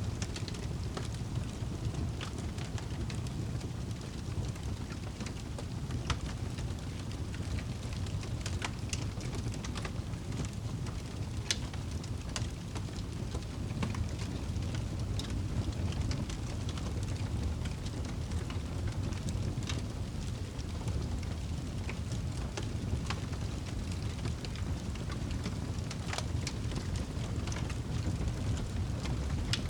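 Wood fire burning in a fireplace: a steady low rush of flames with irregular sharp crackles and pops from the logs, a few of them louder.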